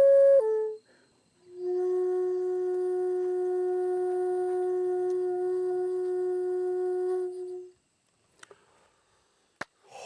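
Daegeum, the Korean large bamboo transverse flute, played solo. A phrase ends with a short higher note stepping down, then after a breath one long low note is held steady for about six seconds before stopping. A few faint clicks follow near the end.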